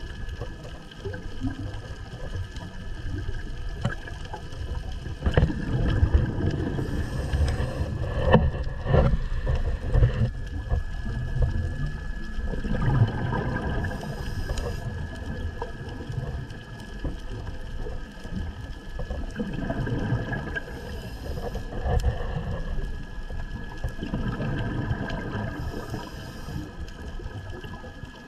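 Scuba diver breathing through a regulator underwater: low bubbling rumbles of exhaled air come in bursts about every six or seven seconds, each followed by a short high hiss of inhalation, over a steady underwater hum.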